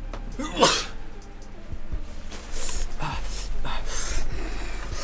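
A man's loud cry with a sliding pitch about half a second in, then a string of breathy groans and gasps, over a background music track.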